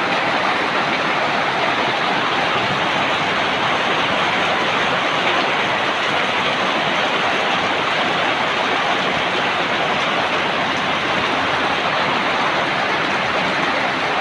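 Steady, unbroken rushing of a storm, loud and even throughout.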